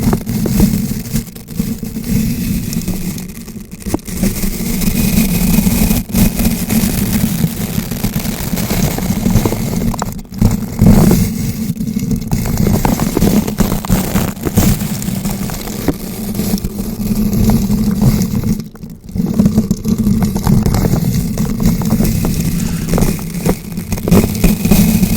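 Bristle brush rotated and rubbed directly against a bare microphone: continuous loud scratching and crackling over a heavy low rumble, with a few brief breaks.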